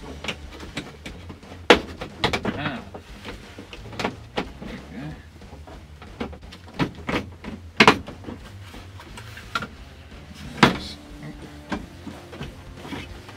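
Scattered clicks, knocks and rattles of a 1967 Plymouth Valiant's dash instrument cluster being wiggled loose from the dashboard. Three sharper knocks stand out: one about two seconds in, one near the middle and one near the end.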